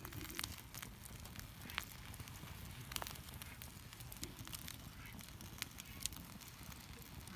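Wood campfire crackling, with scattered sharp pops and snaps over a steady low background.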